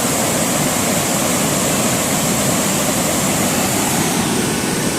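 A waterfall about 40 m high falling in heavy flow: a loud, steady rush of water.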